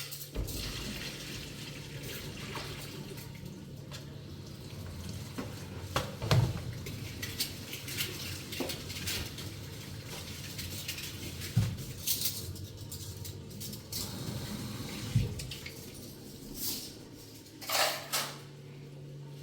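Water running steadily, with scattered clinks and knocks of dishes, and a low steady hum underneath.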